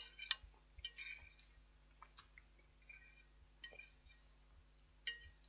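Faint, scattered light clicks and clinks of someone eating a plated meal, about ten of them, irregularly spaced.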